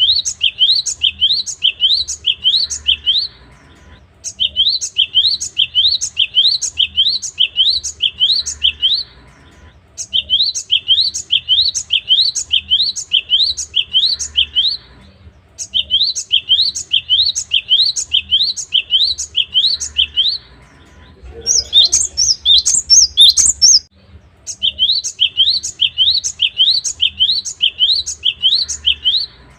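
Cinereous tit (gelatik batu) singing: phrases of quick, rising notes repeated about three times a second, each phrase lasting a few seconds with short pauses between. About three-quarters of the way through comes one higher, more varied phrase.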